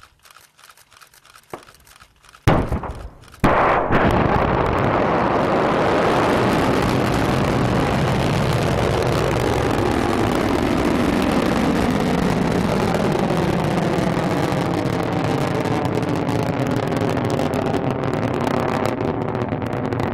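Silo launch of a Dnepr rocket (converted SS-18 ICBM): a sudden blast about two and a half seconds in, then a second later another onset that settles into the loud, steady roar of the first-stage engine as the rocket climbs. The first blast fits the missile being mortar-ejected from its silo, with the engine lighting just after.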